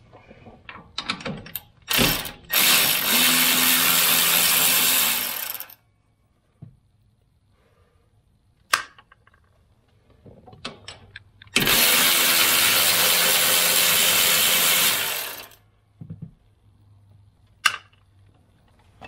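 Cordless electric ratchet running in two bursts of about three to four seconds each, backing out the bolts that hold a turbocharger's wastegate actuator, with a few clicks and knocks of the tool on metal in between.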